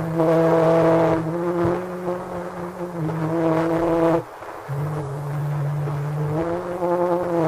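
Early recording of sustained pitched tones: a steady low note held under higher notes that rise and fall in long phrases, breaking off briefly about four seconds in and then starting again.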